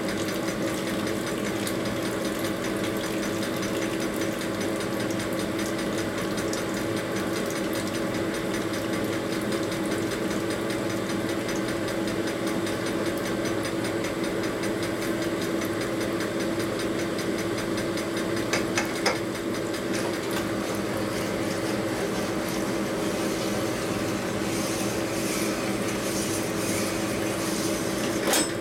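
Honing machine running steadily while a piston's wrist pin bore is honed out on its spinning mandrel. A few light clicks come about two-thirds of the way through and near the end.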